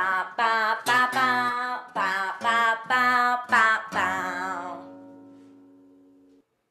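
A woman singing while strumming an acoustic guitar. About four seconds in the singing stops and the last chord rings on, fading out.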